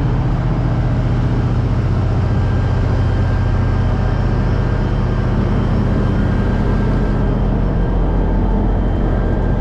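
A steady low engine drone, running evenly without change.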